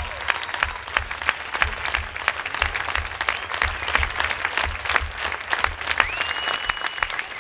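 Audience applauding: many hands clapping in a dense, uneven patter. A short high steady tone cuts in near the end.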